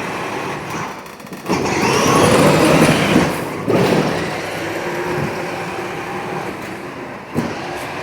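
Battery-powered Power Wheels ride-on toy car driving, its electric motor and gearbox whirring as the plastic wheels roll, loudest for about two seconds shortly after the start. A sharp click near the end.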